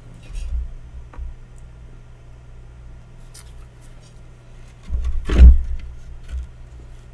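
Dull low thumps and one sharp knock about five and a half seconds in, over a steady low electrical hum: things being moved and set down on a workbench.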